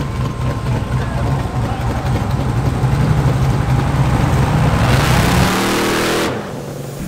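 Ultra4 off-road race car's engine rumbling at the start line, then revving up hard with a rising pitch as the car launches, a hiss of dirt and air building over it. It cuts off abruptly a little after six seconds in.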